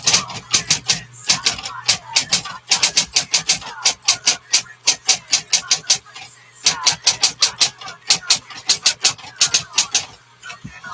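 1960s Smith Corona Coronet Electric 12 electric typewriter being typed on: rapid runs of sharp key strikes with a steady motor hum underneath, a short pause about six seconds in, and the typing stopping just before the end.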